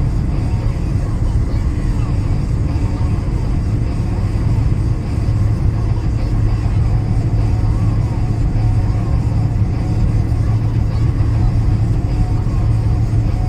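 A car being driven: a steady low rumble of road and engine noise that holds at an even level throughout.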